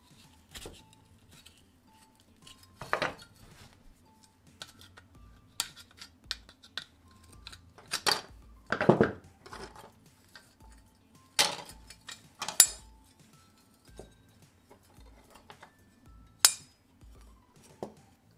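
Small parts of a scale model car being pulled apart and handled: scattered light clicks and clinks of plastic and metal pieces, with a few louder snaps and knocks.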